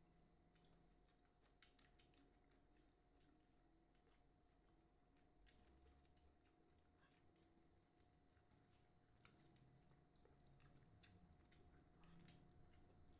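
Very faint eating sounds: scattered soft clicks and chewing as people eat boiled broccoli and beef with their hands, over near silence.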